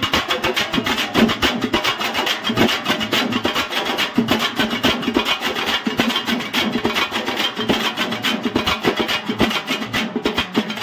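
Pambai and thappattai drums played together in a fast, steady rhythm of dense stick strokes.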